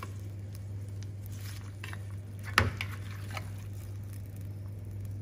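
Metal spoon scooping melted butter from a terracotta dish and basting a whole roasted cauliflower: a few light ticks and one sharp clink of spoon on dish about two and a half seconds in, over a steady low hum.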